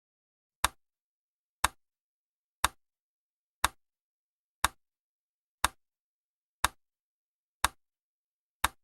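Countdown timer tick sound effect: nine sharp, clock-like ticks, one every second, marking off the seconds of the countdown.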